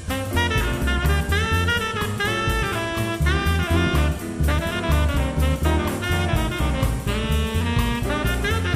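Background jazz music: a horn melody over bass and drums.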